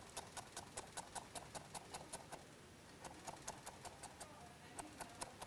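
Knife striking a cutting board in quick, even chopping strokes, about five a second, cutting carrot slices into julienne strips; a short pause about two and a half seconds in, then less regular strokes.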